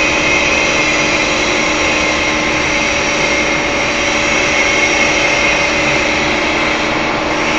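Wire-cut EDM machine running: a steady mechanical hum with several steady tones, unchanging throughout.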